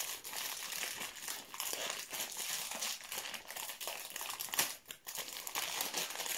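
Crinkly blue plastic-foil wrapper being crumpled and pulled open by hand: a dense, continuous run of crackles, with a brief lull about five seconds in.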